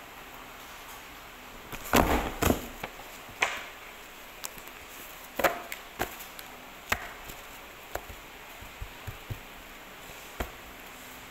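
A thick stack of paper knocked edge-down on a desk to square it up: a loud pair of knocks about two seconds in, then single dull knocks roughly once a second.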